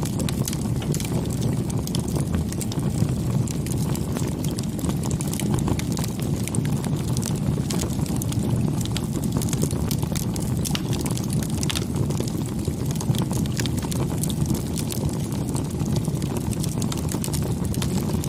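Wood bonfire burning, with frequent sharp crackles and pops over a steady low rumble.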